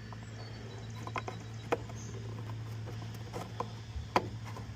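Scattered light plastic clicks and taps from handling a Chevrolet Silverado tail-light housing and its 3157 bulb socket, about half a dozen separate clicks over a steady low hum.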